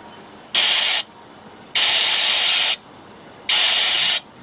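Three short blasts of compressed air hissing into the idle mixture screw ports of an Edelbrock four-barrel carburetor, blowing out the idle circuits, which are suspected to be plugged. The middle blast is the longest.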